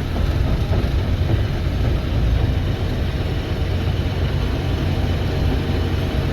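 Combine harvester running steadily while harvesting soybeans: a continuous low engine rumble under the even noise of the threshing machinery.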